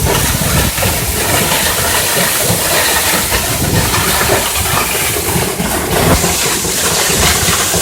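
Waterfall: a loud, steady rush of falling water with a deep rumble underneath.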